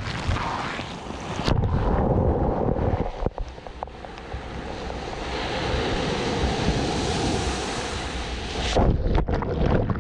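Sea waves breaking and washing up the beach, heard from a camera at the waterline, with wind on the microphone. The wash dips briefly and then swells again. Near the end a wave runs over the microphone with sharp splashes.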